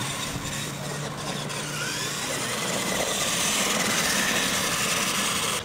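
R/C monster truck running on concrete: motor and tyre noise that grows louder over the last couple of seconds, then cuts off abruptly.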